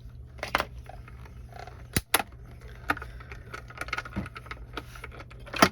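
Clicks, taps and clatter of a metal die, cutting plates and cardstock being handled and stacked for die cutting, with sharp knocks about half a second in, about two seconds in and near the end.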